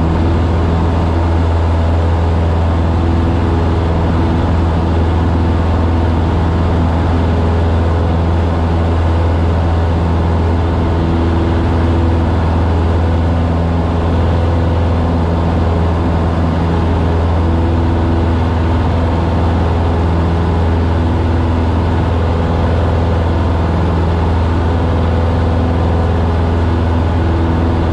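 Cessna 150's four-cylinder Continental O-200 engine and propeller running at full power through the takeoff roll and climb-out: a steady, loud drone with a strong low hum that does not change.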